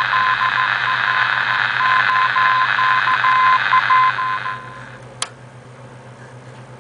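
Morse code tone keyed on and off over a hiss of band noise from an RBM-1 Soviet military valve radio set. About four and a half seconds in, the tone and hiss fall away as a control is turned, then a single sharp click, leaving a low steady hum.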